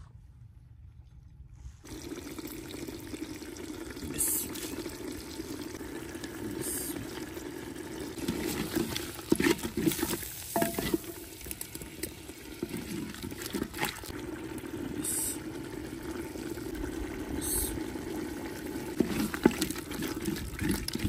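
Stew simmering in a clay pot and being stirred with a wooden spoon, starting about two seconds in, with a few brief scrapes every few seconds.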